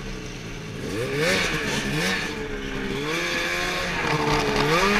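Ski-Doo XRS 800 snowmobile's two-stroke engine idling, then revved about a second in and pulling away, its pitch rising and falling several times with the throttle.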